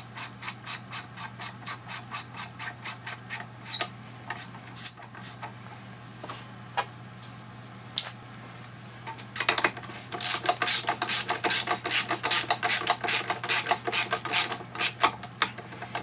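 Hand ratchet clicking as it runs down the nozzle nut on a diesel injector, tightening it to snug. It gives an even run of clicks at the start and a few scattered clicks in the middle, then a louder, faster stretch of clicking over the last six seconds.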